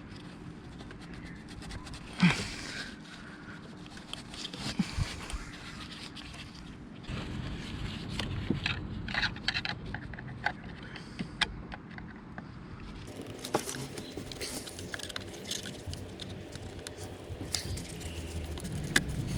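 Scattered clicks, light knocks and scraping from hands working on plastic and metal engine parts, with one sharper knock about two seconds in.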